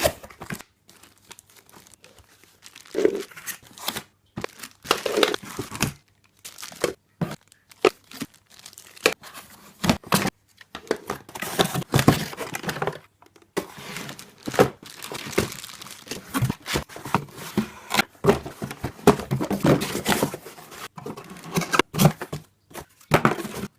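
Packaging crinkling and being torn open in irregular bursts, with rustles and sharp clicks, as vacuum cleaner parts and tools are unwrapped and taken out of their box.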